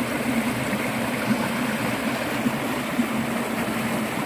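Water pouring and rushing steadily into a ditch pool, a continuous splashing flow.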